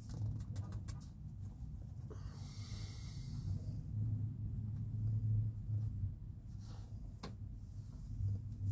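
Domestic tabby cat purring while being stroked, a low rumble that swells and fades. There are a few faint clicks near the start and a soft hiss from about two and a half seconds in.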